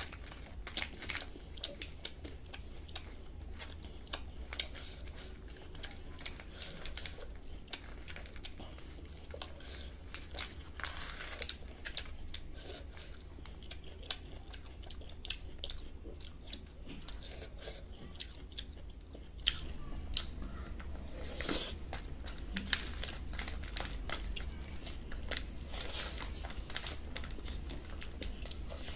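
Close-up mouth sounds of chewing and smacking on a mouthful of rice and meat, with the crinkle of an aluminium foil tray as fingers scoop up food. Many short, irregular clicks and smacks over a steady low hum.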